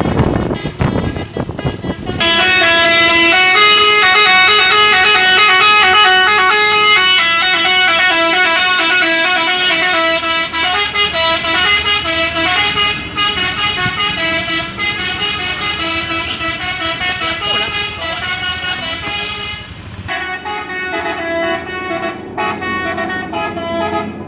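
Telolet, a multi-tone musical horn on a dump truck, playing a tune of quick stepped notes. It starts about two seconds in over a low rumble, breaks off briefly near the end, then starts again.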